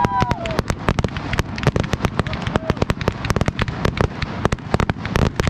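Fireworks display: a dense, rapid run of bangs and crackles, several a second, over a low rumble.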